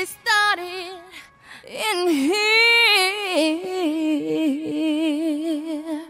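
A lone female voice singing long held notes with a wavering pitch, with no beat behind it.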